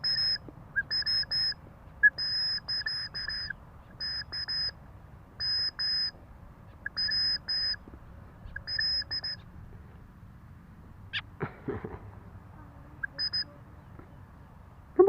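White-breasted woodswallow calling repeatedly: short, harsh, nasal notes with a shrill edge, in quick pairs and triplets about once a second. The calls pause for a few seconds near the end, then come again once.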